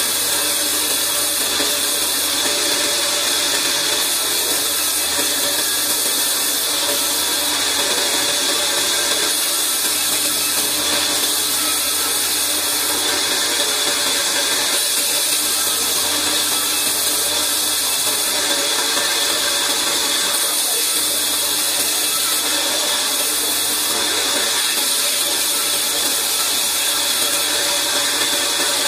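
Large vertical band saw running steadily, its blade cutting lengthwise through wooden boards fed across its table. An even, unbroken noise with a high hiss over a steady hum.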